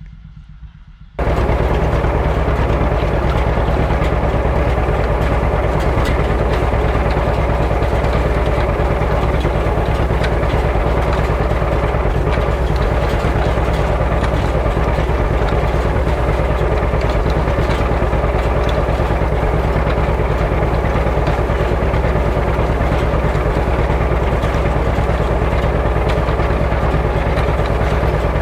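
Tractor engine running steadily at a constant speed, loud and close. It starts abruptly about a second in.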